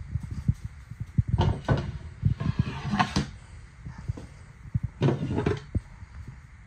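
Low handling thumps with a few knocks and a scrape as a solid-surface sink cover is lifted off a kitchen sink and set down on the countertop.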